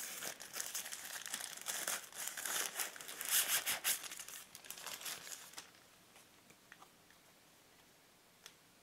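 Thin plastic wrapping crinkling and rustling as it is pulled off a portable Bluetooth speaker, stopping after about five and a half seconds; then only a few faint handling ticks and a small click near the end.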